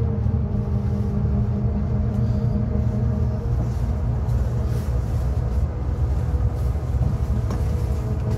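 Steady low rumble of a bus's engine and tyres heard inside the passenger cabin, with humming tones that fade out midway and come back near the end.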